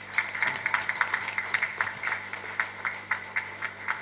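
Audience applauding: a crowd of hands clapping, dense at first and thinning out into scattered claps near the end.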